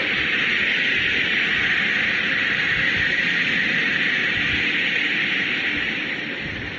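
Steady rushing, hiss-like noise with its strongest band high in the middle, fading a little near the end: a space-sound recording played as the sound of Neptune.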